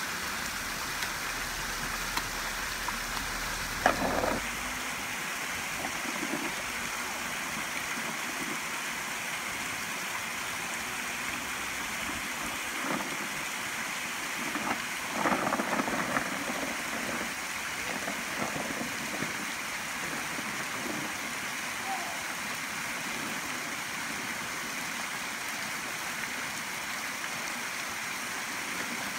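Shallow creek water rushing steadily over rocks and a small ledge waterfall, with occasional splashing from boots wading through the water; the loudest moments come about four seconds in and around fifteen seconds in.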